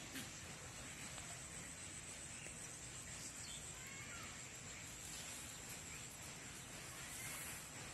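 Faint rural outdoor ambience: a steady high whine with a few scattered, faint bird chirps.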